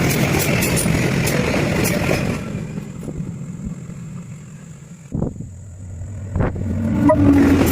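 Train running by with a loud steady rumble that dies away after about two seconds, two sharp knocks in the quieter gap, then a loud engine-like sound with a low hum coming back in about seven seconds in.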